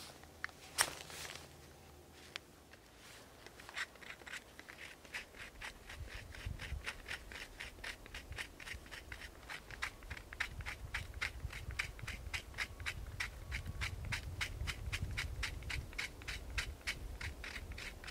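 Knife spine scraping down a ferro rod in quick, even strokes, about four or five a second, starting a few seconds in, to throw sparks onto tinder.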